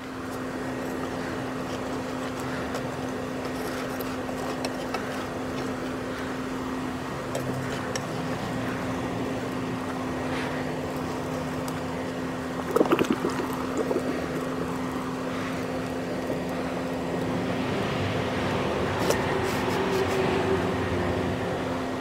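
Small metal-melting furnace running with a steady rushing noise and a constant low hum while aluminium melts in its crucible. A short burst of sharp metal knocks comes about halfway through.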